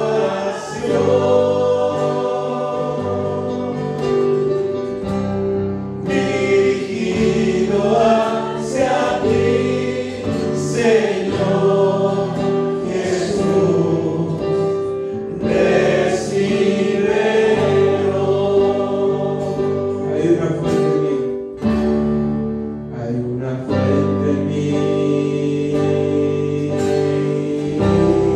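A choir singing a Spanish-language Christian hymn, with long held notes.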